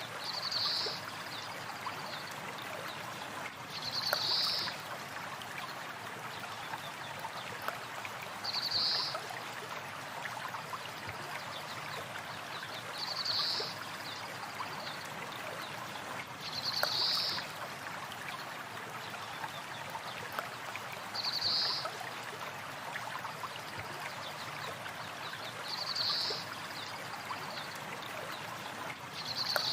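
A river or stream flowing steadily, with a bird's short high call repeating at even spacing, about every four seconds.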